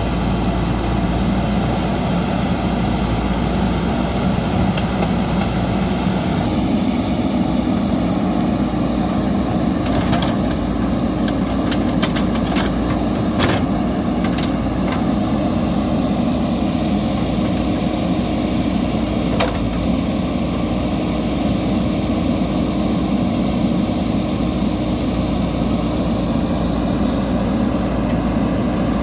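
JCB backhoe loader's diesel engine running steadily under work, its note shifting about six seconds in. A cluster of sharp knocks comes about a third of the way through, with one more about two-thirds in.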